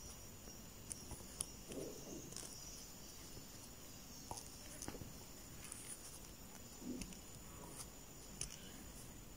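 Faint scattered small clicks and soft rustles of a crochet hook and yarn being worked by hand, as double crochet stitches are made with a nylon cord carried inside them.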